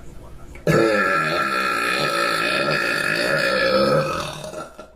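A young woman's long, loud belch. It starts abruptly about a second in and lasts some four seconds, its pitch wavering before it tails off.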